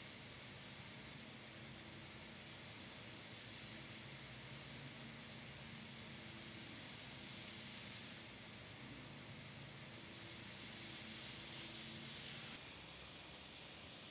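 Steady hiss of compressed air through a Richpen 213 double-action airbrush with a 0.3 mm nozzle while it sprays paint, swelling slightly a few times, with a faint low hum under it. The hiss and hum step down a little near the end.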